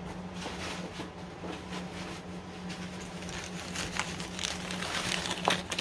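Packing paper rustling and crinkling in irregular crackles as a figurine is unwrapped from it, getting busier toward the end, over a steady low hum.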